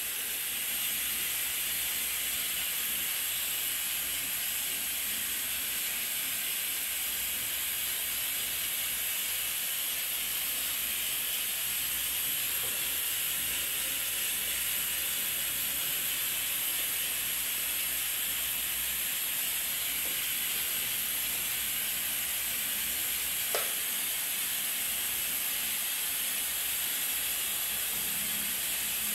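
Steady hiss with no other sound in it except a single faint tap about three-quarters of the way through.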